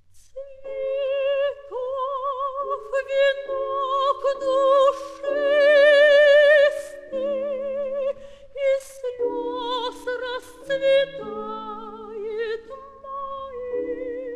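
Soprano singing a slow art song with a wide vibrato, with piano chords beneath, in a 1956 live concert recording; voice and piano enter together at the very start.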